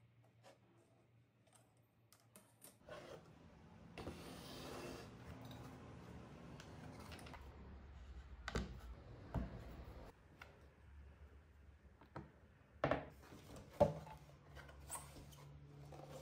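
Quiet handling noises from a small homemade plywood table saw being moved about by hand: light rubbing and scraping, with a few sharp knocks and clicks, the loudest about nine seconds in and again around thirteen to fourteen seconds.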